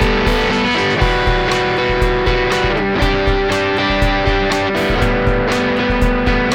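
Electric guitar playing held chords through an Xotic EP Booster pedal into a Vox MV50 AC amp, over a steady beat of about four ticks a second. The chord changes about a second in, again near three seconds and near five.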